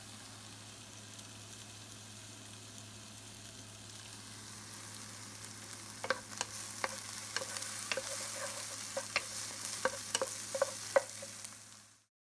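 Sliced red onion and garlic sizzling in hot oil in a nonstick pan as the sauté for the afritada begins. The sizzle grows louder from about four seconds in, with sharp pops and clicks from about six seconds on.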